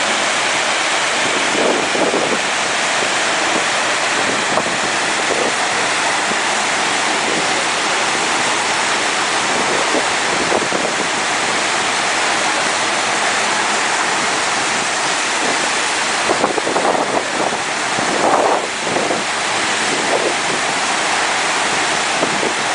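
Loud, steady rush of water from a surf-simulator wave machine, a thin sheet of water pumped up the ramp under a rider, with wind on the microphone. The rush swells in a few brief surges about two-thirds of the way through.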